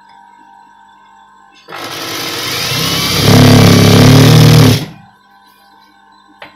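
Electric sewing machine starting up, speeding up and running fast as it stitches the folded waistband casing of a pajama, then stopping abruptly; a single sharp click near the end.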